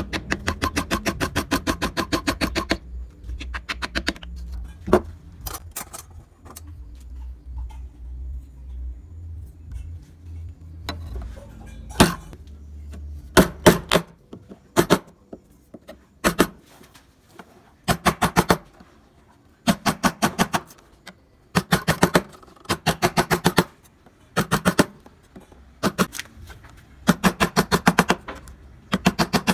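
Wood-carving chisel being tapped into the wood in quick runs of sharp strikes: one long run at the start, then shorter runs every second or two. A low rumble underneath dies away about halfway through.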